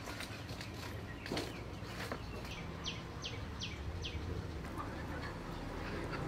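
A bird calling: a quick run of four or five short, high chirps, each sliding downward, about three seconds in. A few sharp clicks come in the first two seconds, over a low steady rumble.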